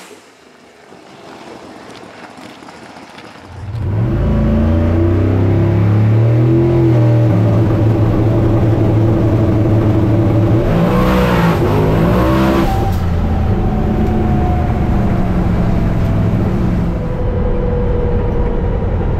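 Drag car engine launching hard about four seconds in and pulling at full throttle down the strip, its pitch climbing, dropping back and climbing again as it goes through the gears. Before the launch it runs quieter.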